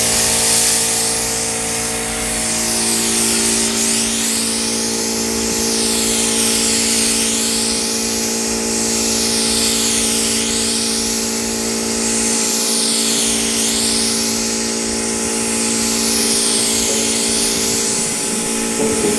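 Gravity-feed paint spray gun hissing steadily as it sprays a car, with a swooshing that rises and falls about every two and a half seconds as the gun sweeps back and forth. A steady hum runs underneath.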